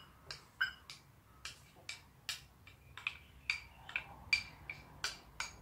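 A spoon clinking repeatedly against a kitchen container as chopped onion is scraped into it: about three short ringing taps a second.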